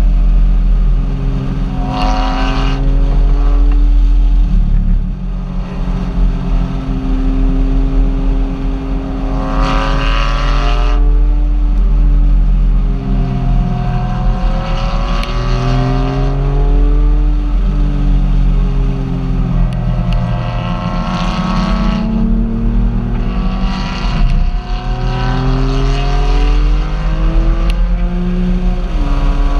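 Car engine running under way, its pitch climbing and dropping again and again as it speeds up and eases off, over a constant heavy low rumble.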